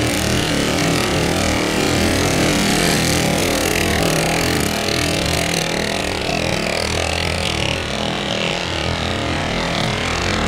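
Small engines of several go-karts running together as a pack drives past on the track, a steady, loud drone.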